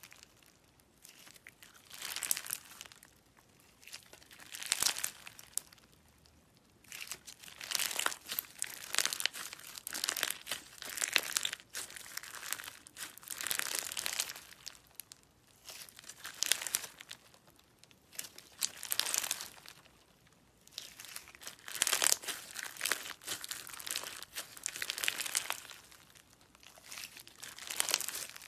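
Clear gold slime packed with sequins and glitter being squeezed and stretched by hand, giving repeated bursts of fine crackling every two to three seconds.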